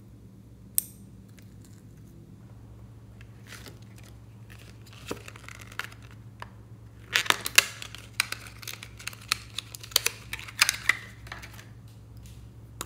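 One sharp snip of scissors about a second in, then thin plastic wrapping crinkling and tearing as it is peeled off a lip balm tube, in bursts of crackles that are loudest past the middle and again later on. A faint steady hum runs underneath.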